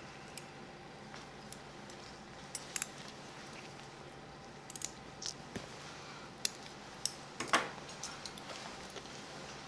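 Steel surgical instruments (hemostats, forceps and scissors) clicking and clinking in short, scattered ticks, loudest about three-quarters of the way through, over a steady faint hum.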